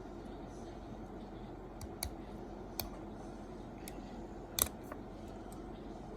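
Small sharp clicks and snips of a Swiss Army knife tool cutting a thick thumbnail: about eight scattered clicks, the loudest a double snap about four and a half seconds in. A steady low hum runs underneath.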